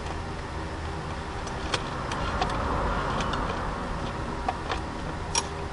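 A steady low mechanical hum, like a car engine running, with light clicks and ticks scattered through it.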